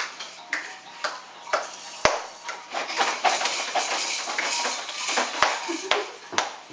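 Irregular plastic clicks and rattles with a few sharper knocks from a baby activity jumper and its clip-on toys as a baby bounces in it.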